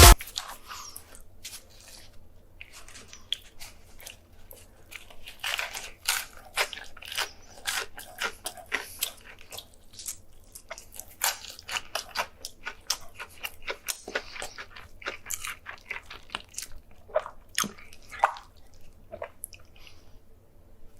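Close-miked eating sounds of a person chewing and biting food, with many short, irregular crunches and mouth clicks.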